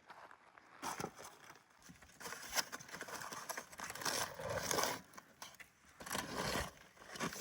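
Intermittent scraping and rustling handling sounds, several irregular spells of a second or so with a few sharp ticks among them.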